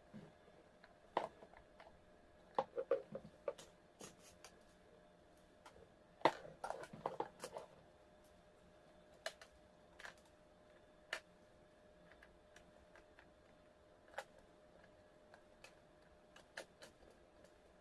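Irregular small clicks and knocks of an electric kettle's plastic and metal parts being handled and fitted back together, busiest in the first half and sparser later, over a faint steady hum.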